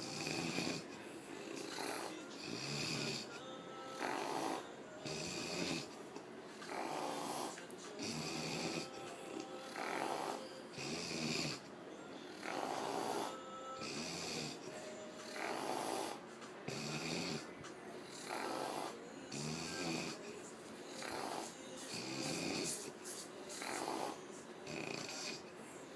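A woman snoring in her sleep, steadily, about one snore every two seconds.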